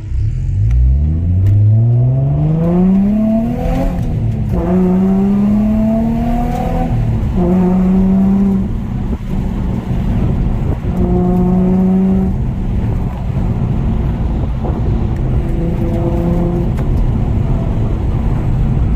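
Nissan 350Z's VQ35 V6 engine pulling under acceleration, its note rising steadily over about four seconds, then holding at steady speeds with short dips in between, over constant road and tyre rumble.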